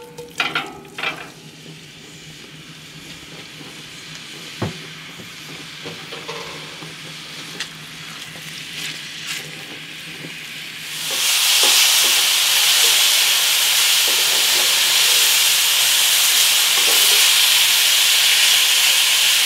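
Cubes of pork neck dropped into a cast-iron skillet of hot lard and stirred with a wooden spatula: light sizzling with a few knocks. About 11 seconds in it turns into loud, steady sizzling as the meat sears hard.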